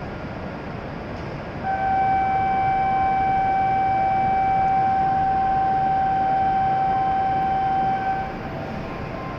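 A single steady electronic signal tone held for about six and a half seconds, starting about two seconds in and cutting off near the end. It is a platform departure signal before a Shinkansen leaves, heard over the steady hum of the station.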